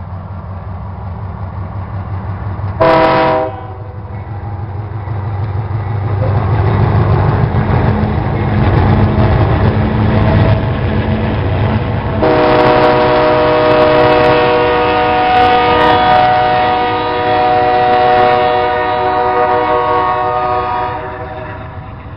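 Union Pacific diesel freight locomotives passing close: a short horn blast about three seconds in, then the low rumble of the engines building as they go by, then a long air-horn blast of about nine seconds that stops shortly before the end.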